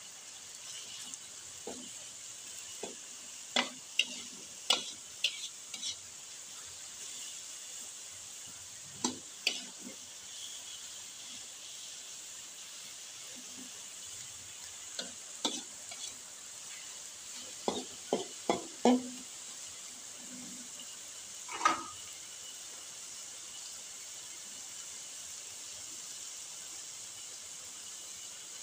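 Tempe and sawi greens sizzling steadily in a frying pan as they are stir-fried, with a spatula knocking and scraping against the pan in irregular clusters. The loudest scrape comes about three-quarters of the way through.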